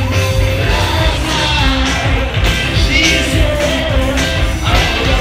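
Rock music with a singing voice over bass and a steady drum beat.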